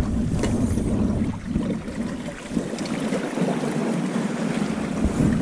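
Sea water washing and lapping against a barnacled rocky shore, a steady rushing noise with a few faint clicks.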